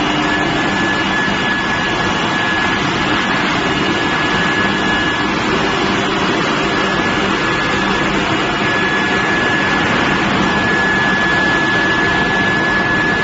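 Induction billet heating furnace running: a steady, loud machine noise with a steady high-pitched whine held throughout.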